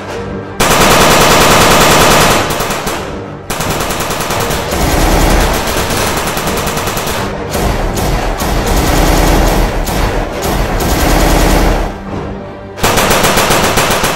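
Rapid automatic machine-gun fire, a gunfire sound effect laid over the play-fighting, in long continuous bursts starting about half a second in, with brief breaks around three and a half seconds and again shortly before the end.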